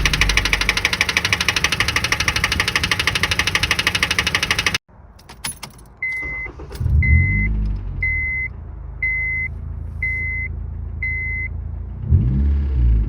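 A car engine running hard with a fast, even knocking pulse, typical of rod knock, cuts out suddenly about five seconds in. Then a dashboard warning chime beeps six times, about once a second, while the engine is twice briefly cranked and rumbles without staying running.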